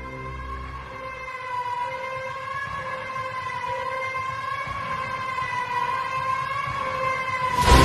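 Background music: a held, slightly wavering high tone, like a siren-like synth pad, over a quieter passage after the bass drops out about a second in; the fuller, louder music comes back in just before the end.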